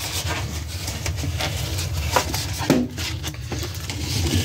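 An inflated latex balloon is handled and knotted, the rubber rubbing with a few short squeaks, the clearest about two and three seconds in.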